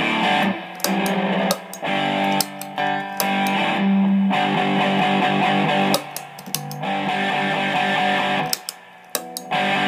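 Single-coil Stratocaster played through a ProCo Rat distortion pedal into a Fender Blues Deluxe amp: heavily distorted chords ring out, with short breaks between them.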